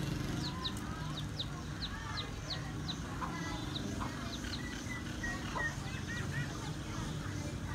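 Baby chicks peeping: a run of short, high chirps, each falling in pitch, several a second, thinning out after about four seconds. Soft clucks from the mother hen come in now and then.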